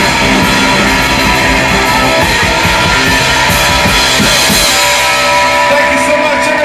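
Live rock band playing loudly: electric guitar, bass guitar and a drum kit.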